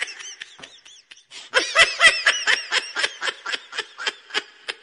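High-pitched laughter in quick pitched pulses, several a second, faint at first and louder from about a second and a half in.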